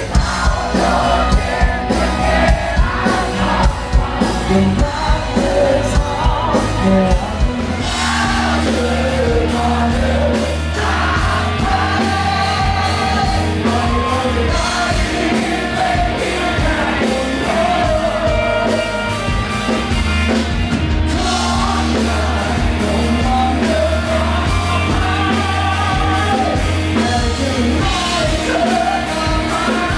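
Live rock band playing: a male lead singer over electric guitars, bass guitar and drum kit. The sound grows fuller and steadier about eight seconds in.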